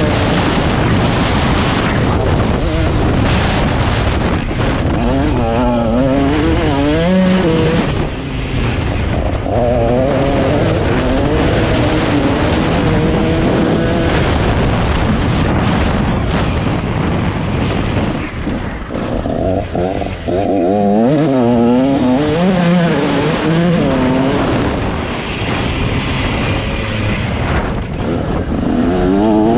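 KTM 150SX two-stroke motocross bike's single-cylinder engine revving hard. The pitch climbs and drops repeatedly as the rider works the throttle and gears, easing off briefly about 8 seconds in and again around 19 to 21 seconds.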